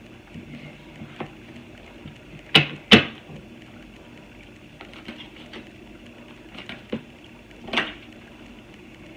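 A tarot deck being shuffled and handled by hand: soft card rustles and small clicks, with two sharp taps of the cards a little over two and a half seconds in and another about three quarters of the way through, over a steady low hum.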